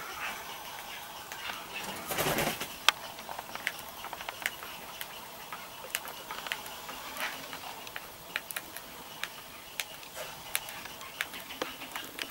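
Cockatiels feeding at a seed bowl: many sharp little clicks of pecking and husking seed, with a short burst of wing flapping about two seconds in and faint bird calls.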